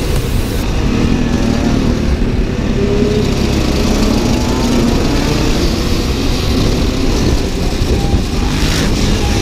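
Husaberg FE 550 supermoto's single-cylinder four-stroke engine running while riding, its pitch rising and falling with the throttle.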